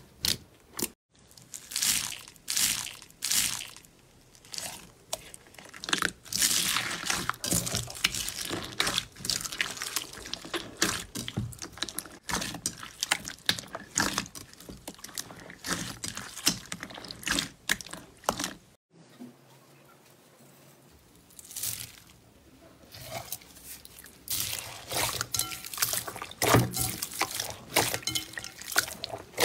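Slime being squeezed and kneaded by hand: wet squishing with dense crackling and popping clicks. Several different slimes in turn, with the sound dropping out briefly about a second in and again for a couple of seconds past the middle.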